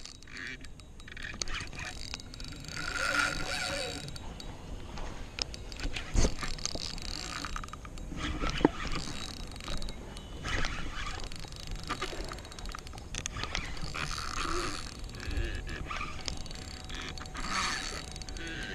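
Spinning reel being cranked in repeated bursts a few seconds apart while fighting a hooked fish on a bent rod, with a couple of sharp knocks from handling the gear.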